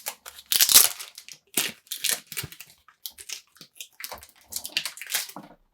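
Plastic packaging being handled, crinkling and rustling in irregular bursts, loudest just under a second in and again about four seconds in.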